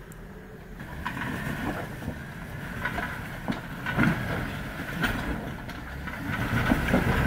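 Jeep Wrangler crawling up rock ledges: its engine runs low and steady, growing louder as it nears, with scattered sharp knocks and crunches of tyres on rock.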